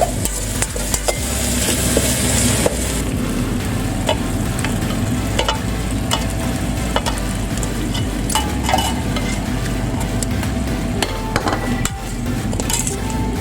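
Food sizzling in hot oil while a utensil stirs and scrapes, knocking against the pan again and again. About a second in the sizzling grows louder and brighter for a couple of seconds.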